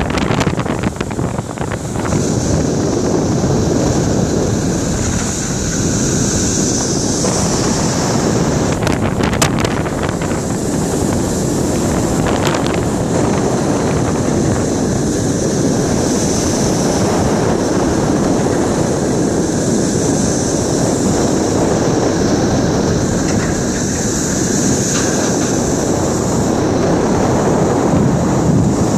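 Strong wind buffeting the microphone over a rough sea, with a high whistling hiss that swells and fades every few seconds and a couple of brief sharp knocks or gusts near the middle.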